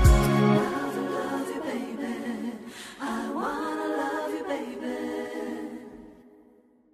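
Closing bars of a Hindi film pop song: the drum beat stops about half a second in, leaving layered singing and held tones that fade out to silence near the end.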